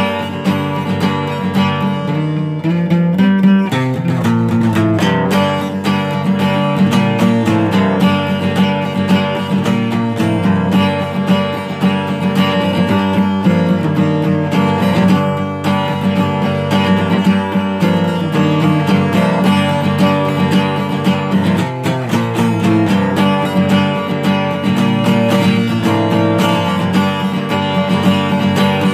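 Guitar playing a riff, strummed chords and picked notes going on without a break.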